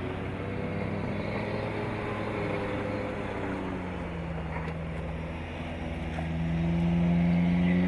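Off-road vehicle engine running at low revs as it crawls over rough trail, picking up in pitch and loudness near the end as it is given more throttle.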